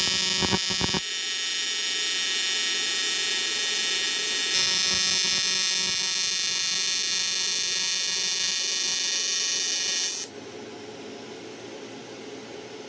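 AC TIG welding arc buzzing steadily as an aluminum elbow is welded onto an intercooler end tank. The buzz grows brighter about four and a half seconds in and cuts off sharply about ten seconds in as the arc is broken.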